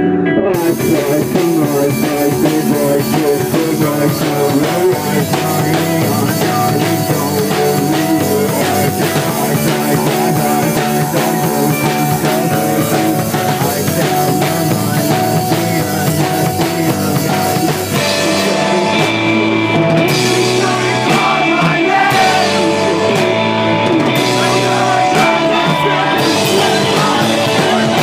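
Live rock band playing loud, with distorted guitars, bass and drum kit; the cymbals ease off about eighteen seconds in while the guitars carry on.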